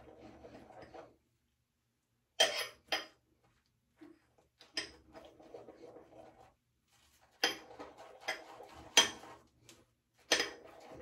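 Boar's hair shaving brush working wet shaving soap into lather in its container: a soft wet swishing broken by sharp clinks and knocks of the brush against the container, about seven of them at irregular intervals. The lather is still thin and frothy from too much water in the brush.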